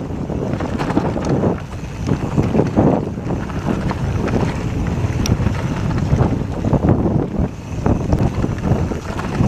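Wind buffeting the camera microphone at speed, mixed with the continuous clatter of a Mondraker Summum downhill bike rattling over rough dirt, with many small knocks and jolts.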